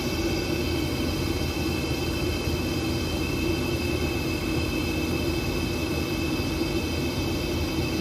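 Rooftop HVAC unit running with a steady mechanical hum: a low drone carrying several steady high tones.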